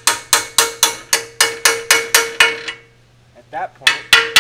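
Hammer blows on a steel pry bar wedged into a Mazda Miata's power plant frame, a quick even run of about four strikes a second with a ringing metal tone, driving the stubborn frame loose from the differential. The hammering stops after nearly three seconds, then two more strikes come near the end.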